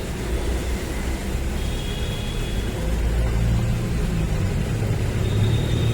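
Steady low rumble of a motor vehicle engine running, with no clear change in speed.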